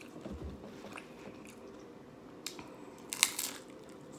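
Biting and chewing a crisp hard corn taco shell: a few sharp crunches between quieter chewing, the loudest a little past three seconds in.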